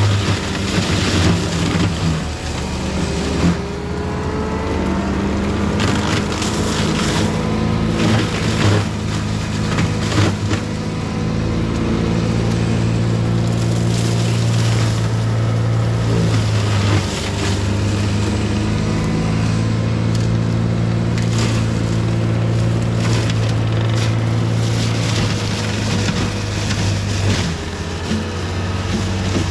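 CAT 259D3 skid steer's diesel engine running steadily under load while its Gyrotrac 400 HL forestry mulching head grinds brush and small trees, with repeated cracks and snaps of wood being shredded. The engine note drops briefly about halfway through and again near the end.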